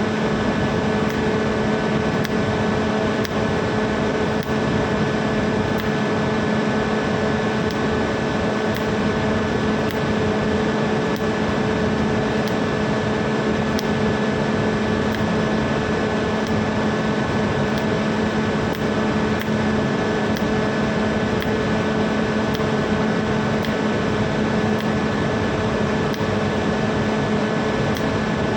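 Stick (arc) welding on a cracked tank, a steady hiss with a constant hum under it, unbroken for the whole stretch.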